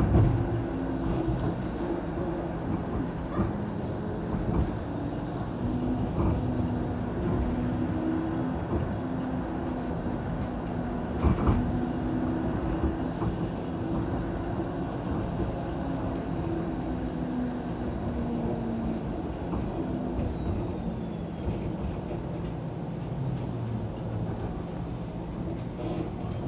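A TTC streetcar running along its tracks, heard from inside the car: a steady low rumble of wheels on rail with a wavering motor whine. Sharp clunks come at the very start and again about eleven seconds in.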